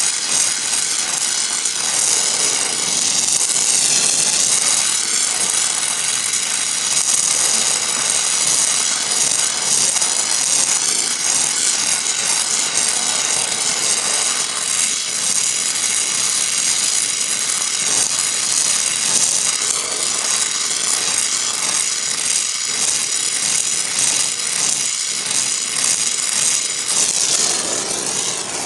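Gas torch flame burning with a steady hiss against an aluminium alloy wheel rim, heating the dented lip so it can be straightened without cracking.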